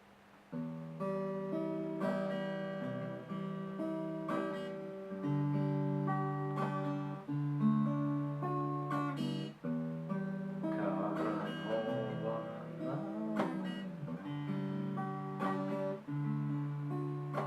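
Acoustic guitar playing chords of a song's instrumental opening, starting about half a second in, with the chords changing every second or two.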